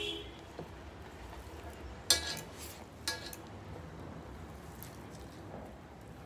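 Hands mixing rice and greens on steel plates, with two sharp metallic clinks against a plate about a second apart.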